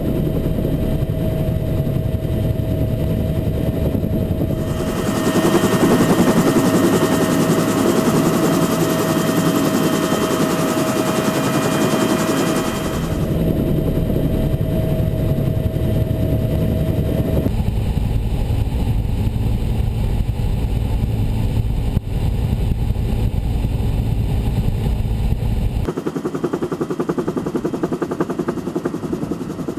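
UH-1 Huey helicopter in flight, heard from inside its open-doored cabin: continuous loud rotor and turbine noise. The character of the noise changes abruptly several times.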